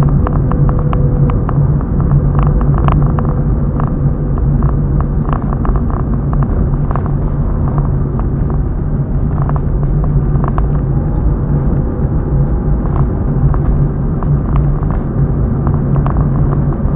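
A car driving on the highway: a steady, loud road-and-engine rumble, with many short clicks or rattles scattered through it.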